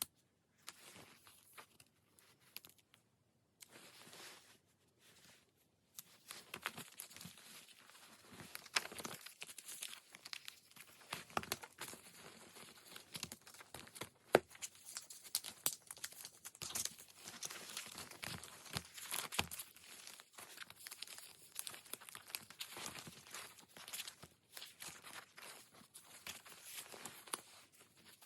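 Paper and sticker sheets rustling and crinkling as they are handled, with small sharp crackles and ticks. After a few brief scattered rustles it becomes continuous about six seconds in.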